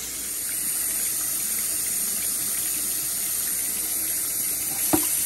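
Hot water running steadily from a kitchen tap onto a glass mason jar and into a stainless steel sink, with a single short knock near the end.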